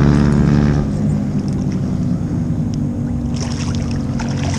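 Motorcycle engines running in a steady low drone, the racket of a group of bikers, with a brief hiss about three seconds in.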